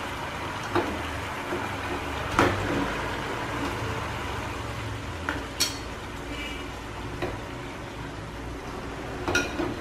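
Tamarind and fish-sauce sauce sizzling steadily in a frying pan as fried tuna steaks are slid into it with wooden chopsticks. About six sharp clicks of chopsticks and plate knocking on the pan; the loudest is a little over two seconds in, and a few more come near the end.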